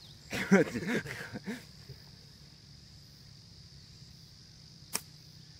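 A golf wedge strikes the ball on a short chip shot, one sharp click near the end, over a steady high drone of insects. A brief spoken remark comes in the first second or so.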